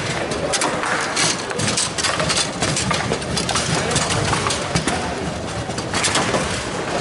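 Table football rally: repeated sharp clacks as the hard ball is struck by the players' figures and knocks against the table, over a steady rattling din.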